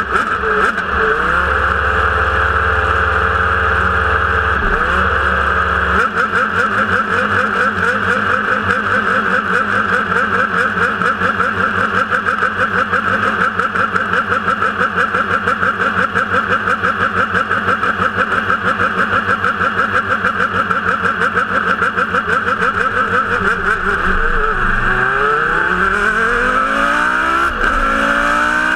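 Formula One car's engine heard onboard, idling for most of the time, then revving as the car pulls away about four seconds from the end and accelerating up through the gears, the pitch climbing and dropping at each upshift.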